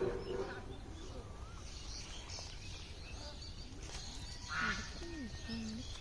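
Outdoor ambience with small birds chirping now and then, and a louder duck quack about four and a half seconds in.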